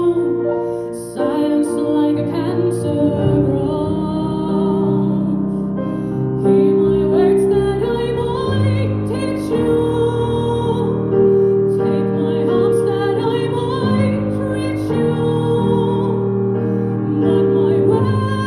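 Slow piano accompaniment with a female voice singing over it in long, wavering notes.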